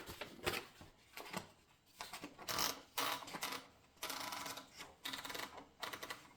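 Mechanism of a 1935 Seidel & Naumann Erika Model M portable typewriter being worked by hand, giving irregular clicks and rattles with a few longer scraping stretches.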